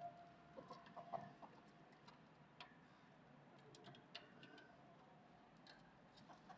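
Near silence with faint, scattered light ticks of a chick's beak pecking, and a brief faint chick peep about a second in.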